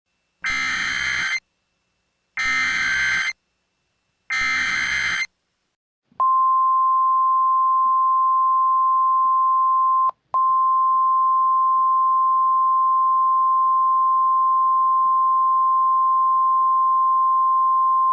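Simulated Emergency Alert System signal. First come three one-second bursts of screechy digital SAME header data, with about a second between each. About six seconds in, the steady single-pitch NOAA Weather Radio warning alarm tone starts, dropping out for a moment about four seconds after it begins. Together they announce a severe thunderstorm warning.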